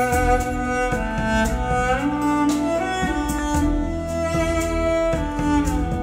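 Music played back through a pair of Totem Forest floor-standing speakers: a slow melody of long, sliding notes over a deep bass line and drum hits.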